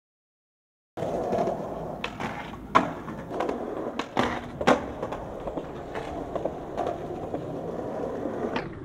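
Skateboard wheels rolling on rough concrete, starting about a second in. Several sharp clacks come from the board hitting the ground and a concrete block, and the loudest is a little under three seconds in.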